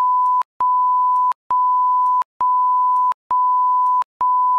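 Censor bleep: a single steady pure beep tone repeated in even pulses of about three-quarters of a second, roughly one a second, masking speech that was edited out.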